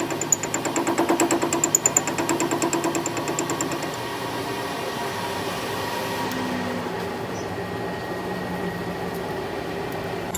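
Metal lathe running, with a rapid, even rhythmic clatter for the first few seconds that settles into a steadier mechanical hum about four seconds in.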